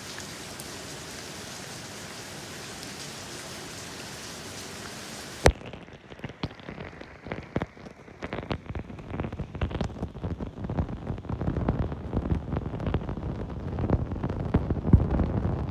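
Rain: a steady even hiss, then about five and a half seconds in a sharp click and the sound changes to heavy, irregular drops hitting close by, duller and growing louder toward the end.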